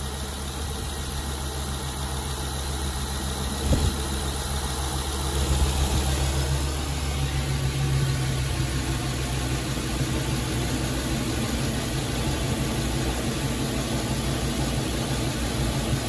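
Ford E350 box van's engine idling steadily with an intermittent misfire on cylinder 4, which the mechanic suspects comes from a fouled spark plug. A brief knock sounds about four seconds in.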